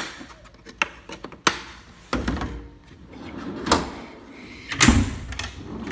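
Steel tool-chest drawers and the tools in them being handled: a few sharp clicks and knocks, then heavier thuds and a sliding rumble as a drawer is shut and the next one opened.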